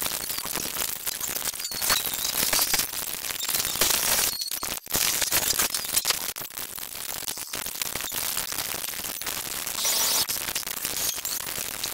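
A cartoon soundtrack played back at extreme speed, so that its dialogue, music and effects blur into a dense, crackling hiss full of rapid clicks, with no words or tune to be made out.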